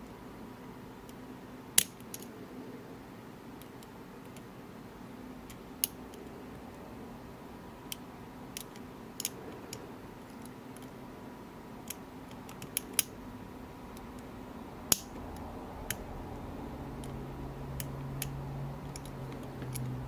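Steel lock pick working the pins inside an Illinois Duo padlock's keyway: scattered sharp metallic clicks, a dozen or so at irregular gaps, over a faint steady background. A low hum swells in near the end.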